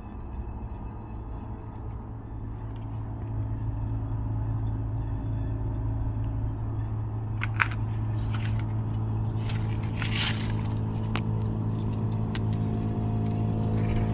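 Daikin multi inverter heat pump outdoor unit running a defrost cycle: a steady compressor hum that grows louder over the first few seconds. From about halfway there are scattered sharp crackles and short hisses.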